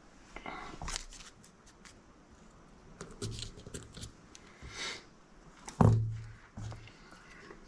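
Hands handling small FPV drone parts on a desk mat: rustling, light clicks and taps, with a dull knock about six seconds in as the drone frame is set down.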